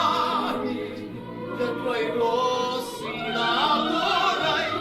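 Classical vocal music: operatic singing, with held notes that waver in pitch and change about once a second.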